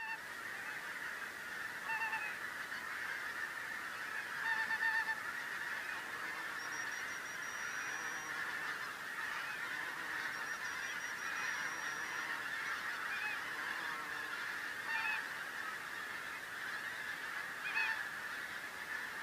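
A large flock of wild geese calling in the air overhead: a dense, continuous chorus of honking, with a few nearer, louder calls standing out now and then.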